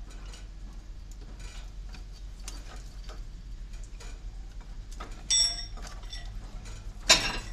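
Steel crowbars clinking and scraping against a railway coach bogie's axle box and spring fittings, with light ticks throughout. A ringing metallic clink comes about five seconds in, and a loud clang near the end.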